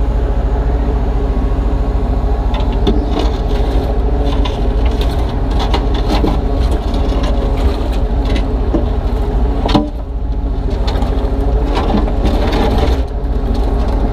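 Kubota U35-3 mini excavator's diesel engine running steadily under hydraulic load. Slabs of broken concrete scrape and knock against the bucket as a jammed piece is worked loose, with one sharp knock just under ten seconds in.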